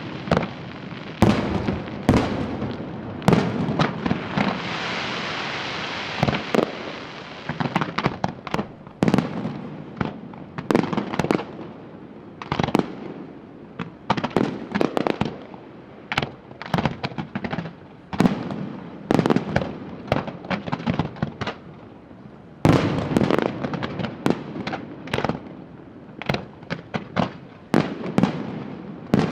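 Fireworks display: aerial shells bursting in rapid, irregular volleys of loud bangs, with a denser, steadier stretch of bursts about four to six seconds in.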